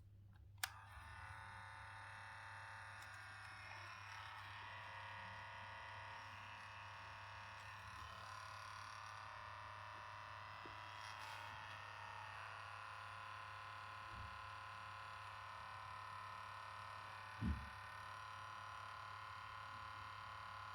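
A button clicks about half a second in, then the Sony WM-FX43 cassette Walkman runs in play with a faint, steady mechanical noise: the fault noise this unit makes whenever play is pressed. There is a single low thump late on.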